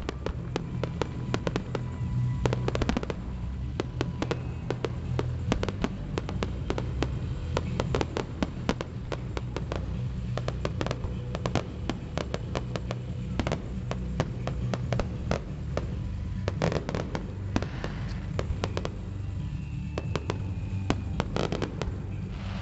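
Fireworks display: a dense run of sharp bangs and crackles, many a second, over music played at the display.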